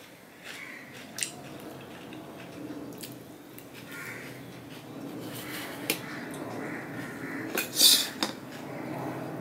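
Fingers working rice on a stainless steel plate, with scattered light metallic clicks of the steel dishware. Around 8 seconds in comes the loudest moment, a quick cluster of steel clatters as a steel serving bowl is handled.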